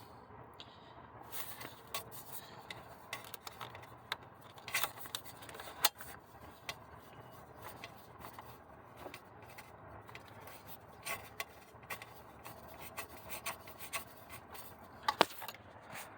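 Hand tools and metal parts on an engine, irregular clicks, taps and short scrapes as a socket tool works the small E10 bolts.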